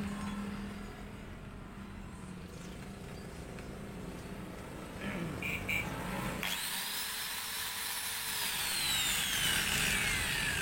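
Maktec MT91 angle grinder running without a disc on a test run after repair. Its motor whine starts suddenly about six and a half seconds in and slides down in pitch toward the end.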